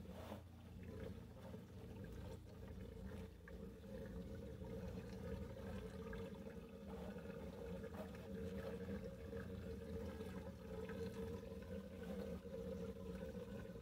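Water trickling and sloshing in a plastic filter drum as acrylic filter wool is pressed down under the water, over a steady low hum.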